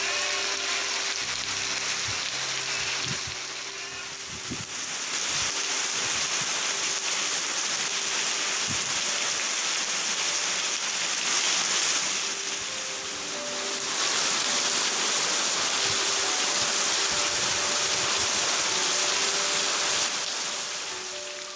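Heavy rain pouring down: a dense, steady hiss of downpour on foliage and waterlogged ground, dipping in loudness briefly three times.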